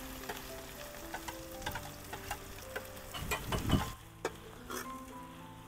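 Chopped onions sizzling in hot oil in an iron kadhai, with a steel spoon clicking and scraping against the pan as they are stirred, and a louder dull bump a little past three seconds in.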